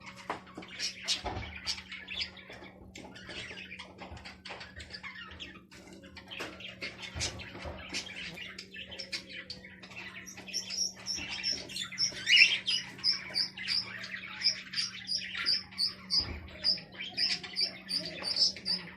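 Small birds chirping: scattered clicks and rustling at first, then from about ten seconds in a rapid, evenly spaced run of high chirps, about three a second, over a steady low hum.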